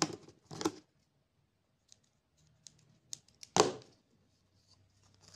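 Small scissors snipping acrylic yarn, one sharp snip about three and a half seconds in, after a couple of short rustles and a few light clicks as the yarn and scissors are handled.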